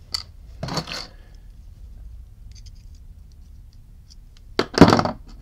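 Hands handling small metal lighter parts and a screwdriver on a workbench: a sharp click at the start, a short rustle about a second in, a few faint ticks, and a louder handling noise near the end.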